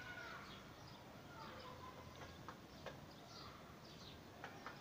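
Faint bird calls: short chirps and brief gliding notes scattered throughout, with a few soft clicks in between over a low background hum.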